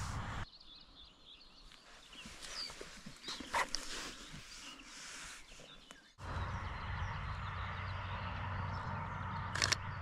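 Roe deer barking: a few short, hoarse calls in the middle. About six seconds in a steady rushing noise takes over, with two sharp clicks near the end.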